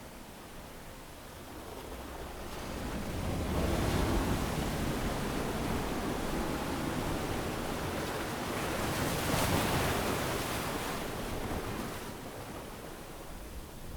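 Ocean waves breaking and washing up a beach: one surge builds about three seconds in, a second, hissier one breaks in the middle, and it ebbs near the end.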